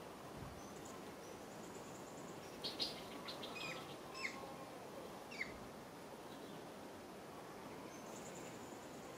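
A handful of short, high chirps, each falling in pitch, bunched together a few seconds in, over a steady faint outdoor hiss.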